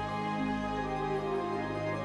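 Slow background music of sustained, held chords.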